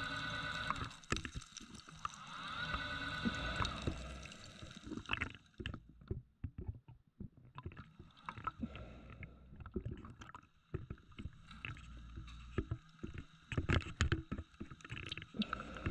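Scuba diver breathing through a regulator underwater: two long rushing exhalations of bubbles in the first four seconds. Then come many scattered small clicks and knocks as shells and gravel are stirred on the seabed.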